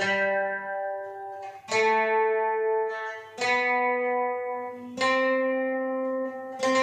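Acoustic guitars strumming chords in Raag Yaman, one chord about every second and a half to two seconds, each left to ring out before the next.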